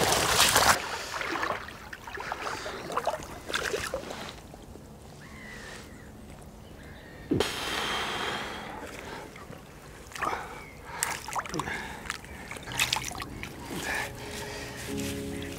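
Water splashing and trickling as a large mirror carp is lifted out in a wet sling, with a loud splash at the start, a sharp knock about seven seconds in, and small handling knocks throughout.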